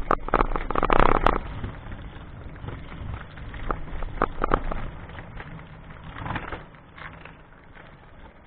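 Clattering rattle and knocks from a jolting ride over a rough road, heavy for about the first second and a half, then easing to scattered knocks over a low rumble that fades towards the end.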